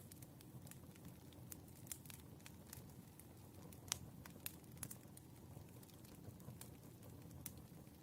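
Wood fire burning quietly, logs crackling with irregular sharp pops over a low rumble, one louder pop about four seconds in.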